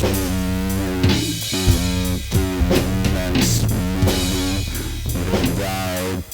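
Rock music with a band: guitar playing a melody of held notes over bass guitar and a drum kit.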